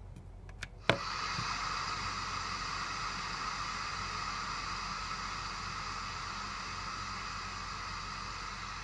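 Blaupunkt Wiesbaden car radio's mono speaker hissing with steady FM static, no station tuned in, after a switch click about a second in.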